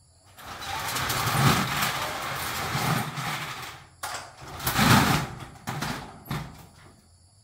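Folding corrugated steel doors dragged shut along their track: a long metallic rattling rumble lasting about three seconds, then a second, shorter rattle about five seconds in as the halves close. A few sharp clicks from the door latch follow.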